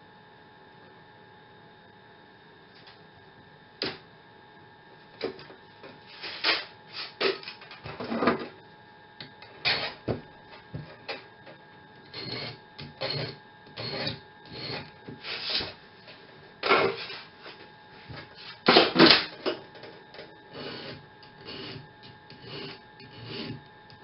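Steel band saw blade handled and bent into a loop, its ends brought together: irregular clicks, taps and scrapes of the thin metal strip.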